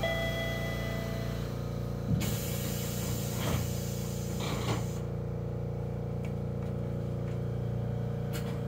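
Chiba Urban Monorail Type 0 cab at a station stop: a steady electrical hum, with a chime tone that ends about a second and a half in. From about two to five seconds in comes a hiss of air, with three brief louder sounds within it, before the car begins to move.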